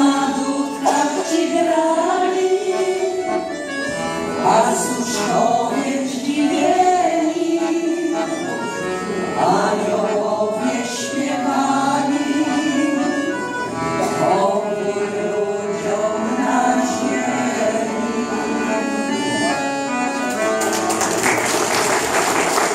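A small group of women singing a Polish Christmas carol to piano accordion accompaniment, the melody moving in sustained sung phrases over the accordion's steady chords.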